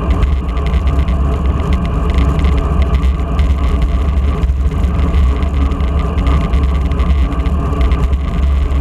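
Steady loud wind rumble on the microphone of a moving road bike, mixed with the hiss of tyres on asphalt.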